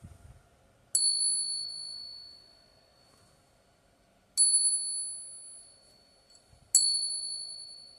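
A genuine 90% silver Morgan dollar balanced on a fingertip and tapped three times with another silver dollar: each tap is a sharp click followed by a high, clear ring that fades over about two seconds. The long ring is the sign of real silver, and a coin-tester app rates this coin good.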